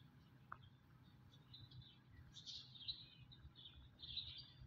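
Faint chirping of small birds in scattered bursts, with a low steady hum underneath.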